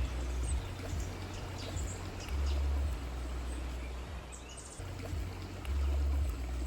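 Wind gusting on the microphone in a forest, a low rumble that swells and drops about every two to three seconds, with a few faint bird chirps.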